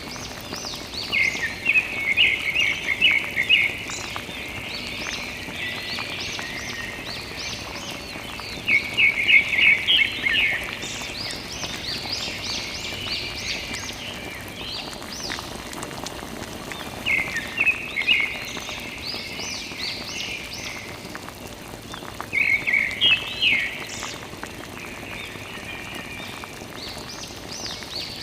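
Chirping calls in short bursts of rapid high notes, a group every few seconds, over a faint steady hiss.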